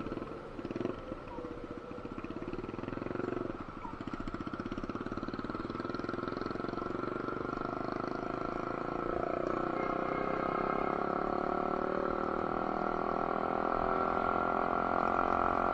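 Motorcycle engine running while riding along a road, with wind and road noise; the sound grows gradually louder as the bike speeds up.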